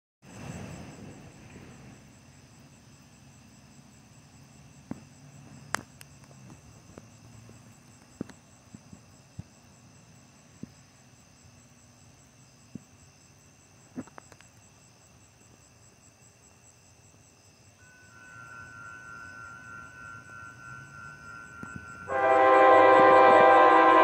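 Faint steady high-pitched background with a few scattered clicks. From about 18 seconds in, the approaching train's horn is heard faintly in the distance. About 22 seconds in, the Amtrak Texas Eagle locomotive's horn blows loudly, a chord of several notes held steady.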